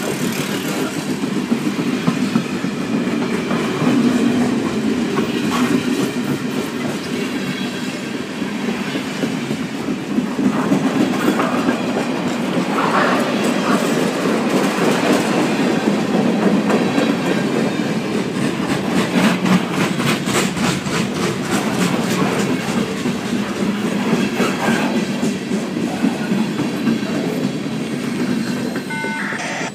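Freight cars of a passing train rolling by close at speed: a steady rush of steel wheels on rail with an even clickety-clack over the rail joints. The sound falls away near the end as the last car goes by.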